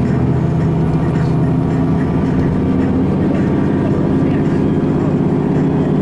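Vehicle engine running steadily under load with road noise, heard from inside the moving vehicle as it drives a mountain road.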